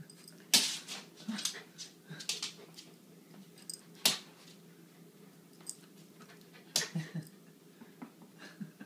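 A Lhasa apso making short, sharp sounds while playing for a sock held above it, five or six in all, the loudest just over half a second in and about four seconds in.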